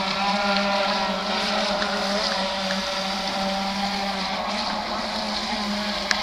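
Electric RC speedboat (NDQ PX-16) running at a steady speed: an even motor whine made of several held tones over a hiss.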